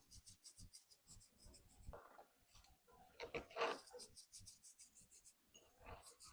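Hand spice grinder twisted in quick, even strokes, a faint scratchy grinding of about seven rasps a second, with a brief louder rustle of handling near the middle.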